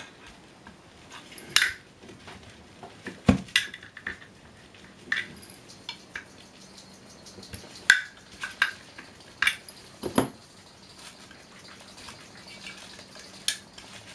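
Small screwdriver clicking and scraping against the metal case of an aircraft fuel quantity indicator as it is pried open: about a dozen irregular sharp clicks and knocks. The case is slightly bent in and hard to open.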